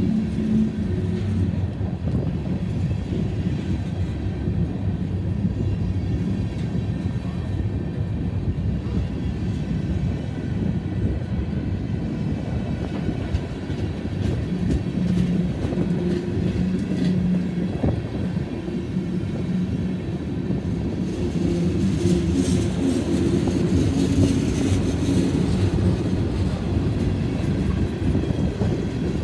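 CSX freight train's covered hoppers and tank cars rolling past close by: a steady rumble of steel wheels on the rails. About two-thirds of the way through it gets louder and harsher for several seconds.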